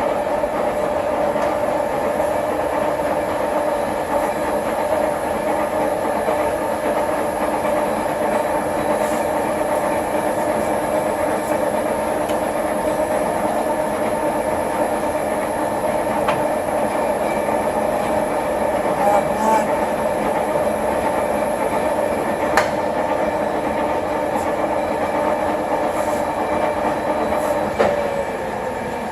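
American Pacemaker engine lathe from 1954 running with no cut, its gear drive giving a steady whine over a mechanical rattle. Near the end the pitch sags and the sound drops off, as the spindle slows.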